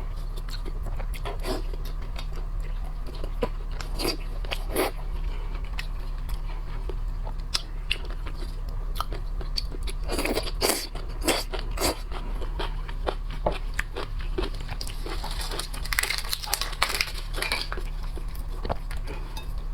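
Close-up eating of shrimp and crab: shells cracking and crunching in irregular bursts, with wet chewing, over a steady low hum.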